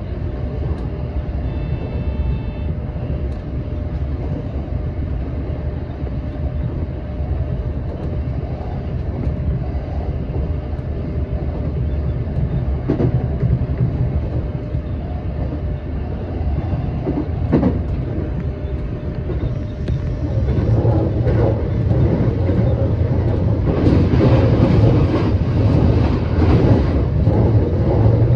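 Electric commuter train running along the line, heard from on board: a steady low rumble of wheels on rail with occasional clacks over rail joints, growing louder and rougher about twenty seconds in.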